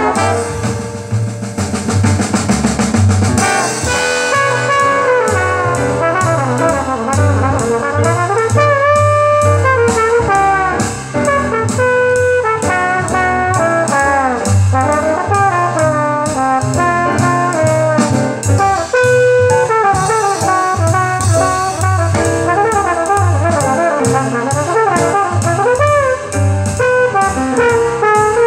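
A pair of 1979 AIWA SC-61 bookshelf speakers playing recorded instrumental music: a brass-led jazz tune with drums over a pulsing bass line.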